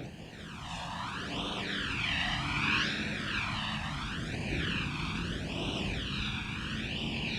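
A motor vehicle's engine running at speed: a steady rushing drone whose tone sweeps up and down about once a second, giving a wavering, whooshing whine.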